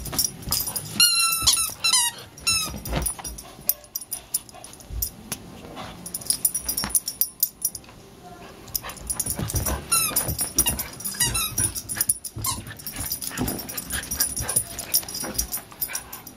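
Beagle puppy at play with a toy: clusters of high, wavering squeaks about a second in and again around ten seconds, among thumps and scuffling of paws and movement.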